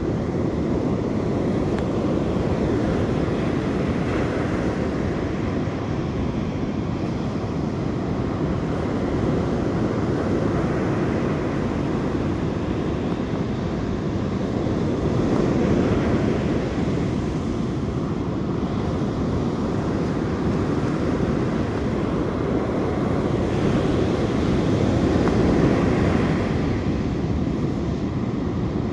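Waves breaking on a sandy beach, mixed with wind buffeting the microphone: a steady, heavy rushing rumble that swells about halfway through and again near the end.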